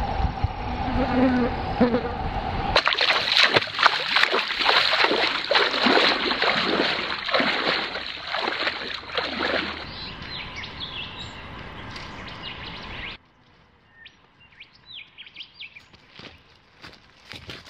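Feet splashing through shallow water as someone wades across a stream: dense splashing that starts about three seconds in, after a steady hum, and fades over about ten seconds. It gives way to faint footsteps on dry ground and a few bird chirps.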